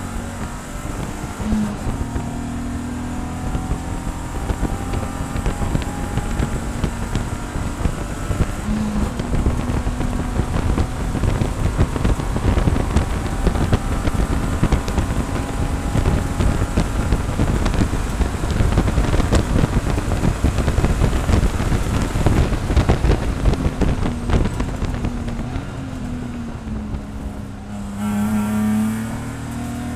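In-car sound of a BMW E46 SpecE46 race car's straight-six under full throttle, revs climbing through the gears with two quick shifts in the first ten seconds, and wind and road noise growing loud at top speed. Near the end the revs fall as the car brakes and downshifts for a corner, with a brief rise in revs.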